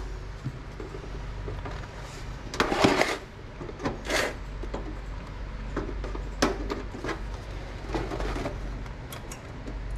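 Clicks and knocks of hands working on a desktop computer's case and parts while the memory module is refitted for a test, the loudest cluster about three seconds in, over a steady low hum.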